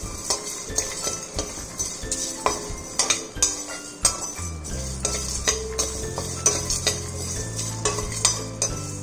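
Metal spatula scraping and clicking against a pan as whole spices are stirred while they roast to golden brown, in irregular strokes. Background music plays throughout, with a low held bass coming in about four seconds in.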